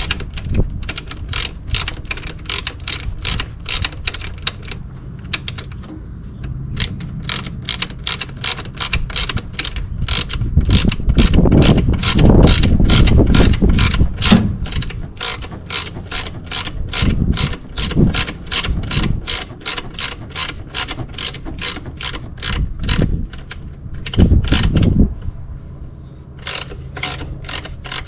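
Hand ratchet clicking steadily at about three clicks a second as it turns the adjuster to set serpentine belt tension. Heavier low knocking and rubbing from the work come in at times, loudest in the middle.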